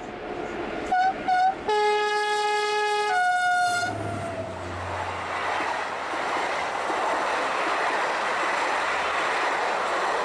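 Dubbed recording of an SNCF BB 67400 diesel locomotive: two short horn toots, then a long horn blast that shifts to a second note partway through, followed by the train rolling past with a steady rumble of wheels on rails.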